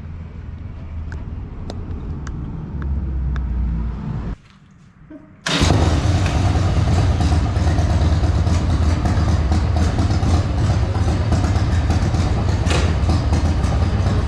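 Harley-Davidson Sportster's V-twin engine running steadily. The sound drops out for about a second a little past four seconds in, then comes back suddenly louder and stays loud.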